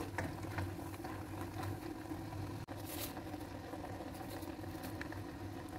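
Blended spice paste and lemongrass sautéing in a non-stick wok, a spatula scraping and stirring at first, over a steady low hum.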